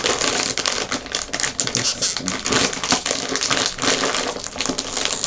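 Plastic snack packaging crinkling and crackling as it is handled and worked open, with many sharp crackles throughout.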